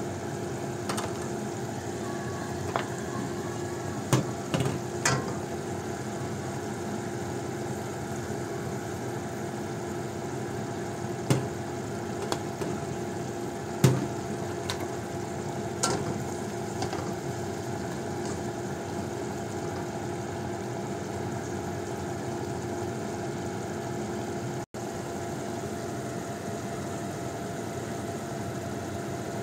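Steady motor hum, with a handful of sharp clinks and taps of a spatula against a wok of simmering beans, the loudest a little before the middle.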